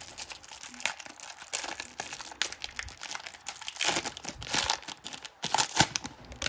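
Cellophane wrapper of a trading-card cello pack crinkling and tearing as it is opened by hand, in irregular crackles that grow louder around the middle and again near the end.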